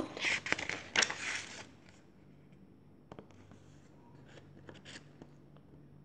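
A picture book's paper page being turned by hand: a rustle and crinkle lasting about a second and a half, then a few faint ticks of the paper settling.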